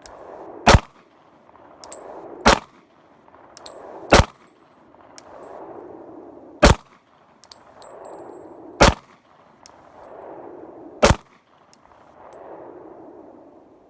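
Glock 23 .40 S&W pistol fired six times in slow single shots, roughly two seconds apart.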